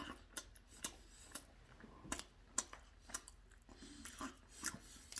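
Eating sounds from a man working through a sandwich: faint, irregular sharp clicks and small crackles, about a dozen spread over a few seconds.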